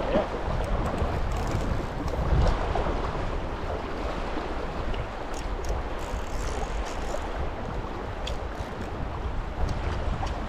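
A stream's water rushing steadily, with wind buffeting the microphone.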